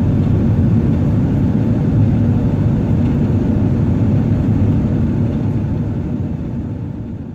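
Airbus A380 airliner cabin noise: a steady low rumble of engines and airflow, fading out near the end.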